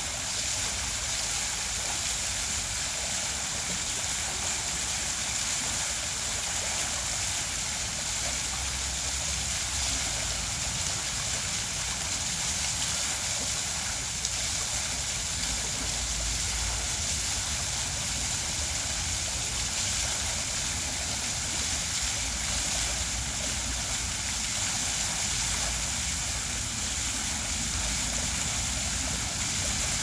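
Water from a cone-shaped stone fountain cascading down its sides and splashing into the basin: a steady rushing hiss.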